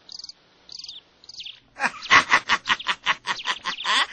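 Crickets chirping in short, evenly repeated pulses; about two seconds in, a louder, rapid chatter of sharp calls starts over them.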